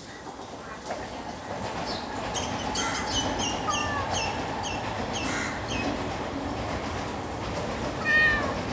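A stray tabby-and-white cat meows once, loudly, near the end. Under it runs a steady rumbling background noise, and in the middle a run of short high chirps, about three a second.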